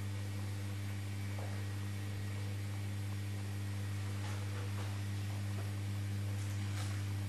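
Steady low electrical hum with a few faint soft sounds in the second half.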